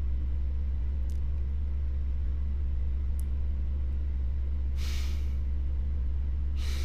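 A steady low hum runs under a pause in the talking, with two faint clicks and a soft breath-like hiss about five seconds in.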